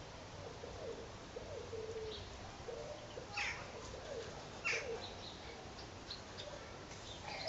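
Birds calling: a run of short, low cooing notes, with two brief high calls falling in pitch about three and a half and five seconds in.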